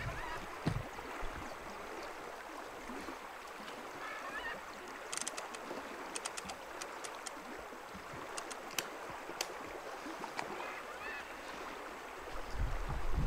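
River water rushing steadily. About five seconds in, a quick run of small sharp clicks from a fishing reel as its drag is set to let line run out with minimal resistance, with a couple more clicks a little later.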